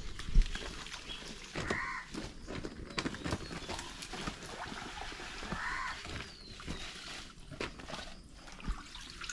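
Rustling of dry leaves and brush and light splashing of water as a man wading in a shallow canal pulls debris by hand. A bird calls twice, about two and six seconds in.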